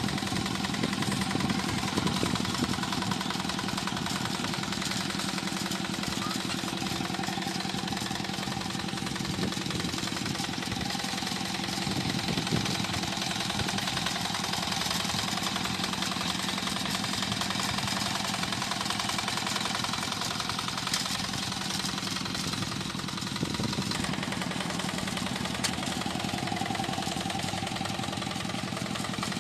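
Tractor engine running steadily while plowing a flooded rice paddy.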